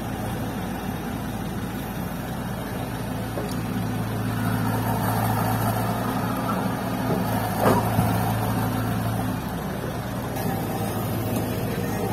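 Cat hydraulic excavator's diesel engine working steadily while loading soil into a dump truck. The engine note grows stronger for several seconds from about three seconds in, and there is a sharp thump near eight seconds.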